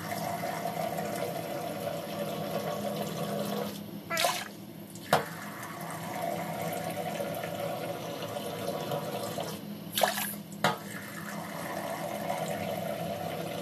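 Kitchen tap running steadily into a drinking glass while measuring out glasses of water. The flow breaks twice, about 4 and 10 seconds in, with a short loud splash and a sharp knock each time as the glass is emptied into a stainless steel pot.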